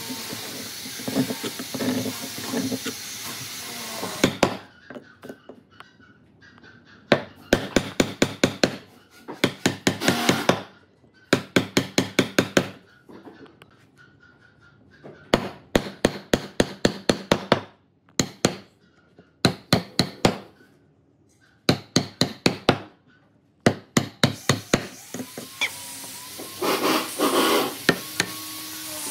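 Quick bursts of sharp knocking, like hammer blows on wood, several strikes at a time with short pauses between. A steady hiss runs through the first four seconds and cuts off.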